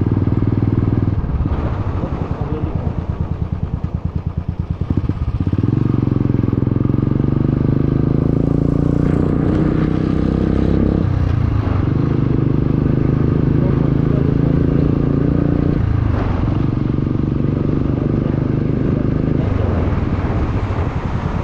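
Motorcycle exhaust running loud under way, heard from the rider's helmet; the engine note climbs about five seconds in and dips then picks up again twice, about 11 and 16 seconds in.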